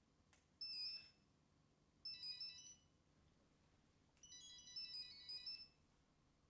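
A telephone ringing with an electronic melodic ringtone: short phrases of high stepped notes repeat about every two seconds with short pauses between them. It sounds faint.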